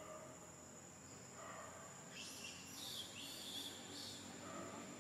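Faint outdoor ambience with a steady high-pitched whine, and a short cluster of brief, scratchy high sounds about two to four seconds in.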